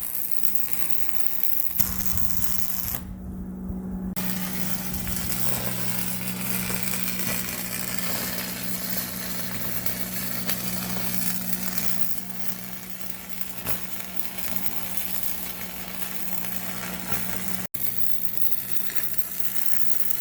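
Stick (arc) welding: the electrode arc crackling and sizzling steadily over a steady low hum from the welding machine.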